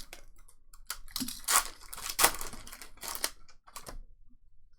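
Trading-card pack wrappers crinkling and tearing as packs are ripped open, with two sharper rips in the middle; the rustling stops about a second before the end.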